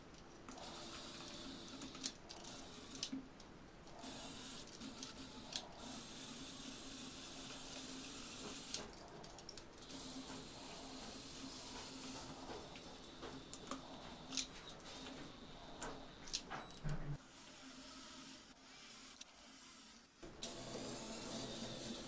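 Electric motors and plastic gears of a LEGO Technic RC car running, a steady whirring hiss broken by scattered sharp clicks and a few short pauses.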